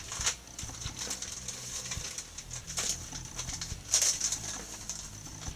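Clear plastic bag of model-kit parts crinkling in short, scattered bursts as it is handled.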